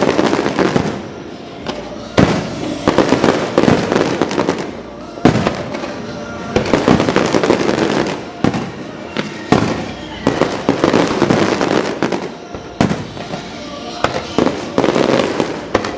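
Aerial fireworks bursting in quick succession, with sharp bangs every second or two and dense crackling between them.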